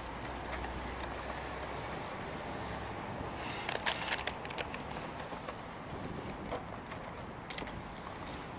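A Hot Wheels blister pack being handled and pried open: scattered plastic clicks and crackles, with a burst of crackling about four seconds in.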